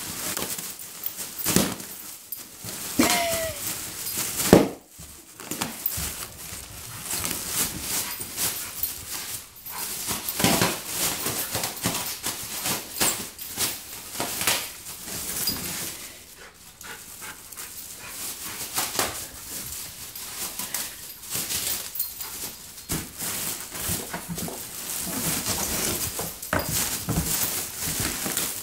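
Plastic air-pillow packing crinkling and crackling as a dog bites and tugs at it in a cardboard box, with sharp pops as the air pillows burst, the loudest about four and a half seconds in.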